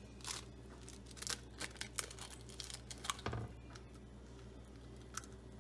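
A string of short rustles and light clicks, about a dozen spread over the first three seconds or so and one more near the end, like things being handled.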